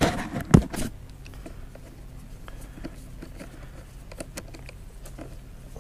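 A loud bump and rustle in the first second, then light, scattered metal ticks and scrapes of a screwdriver working the terminal screw of an ATV battery.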